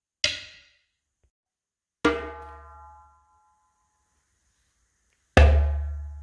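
Three separate percussive strikes on resonant household objects, each ringing and fading away. The first is short and bright. The second, about two seconds in, rings with clear pitches. The third, the loudest, comes near the end and has a deep boom under its ring.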